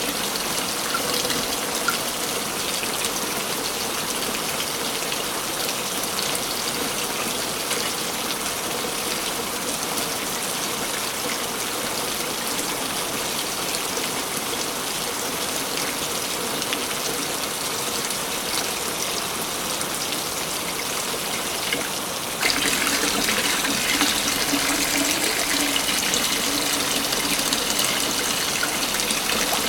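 Waterfall in a forest: a steady rush of falling water. About three-quarters of the way through it shifts suddenly to a louder, brighter rush.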